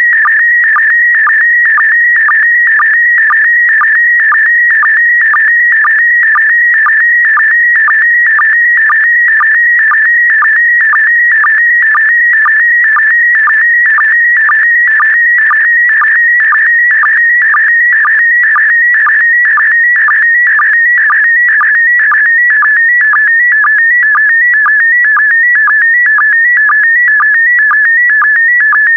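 Slow-scan TV image signal in PD120 mode: a steady, loud electronic warbling tone around 2 kHz, rapidly shifting pitch as it carries picture brightness, broken by a short lower blip about twice a second that marks each new pair of scan lines.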